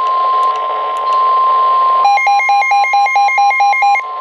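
NOAA Weather Radio's steady 1050 Hz warning alarm tone, signalling that a warning message follows. About two seconds in, a weather radio receiver's own pulsing alert beep joins it at about four beeps a second for two seconds, before the steady tone carries on alone.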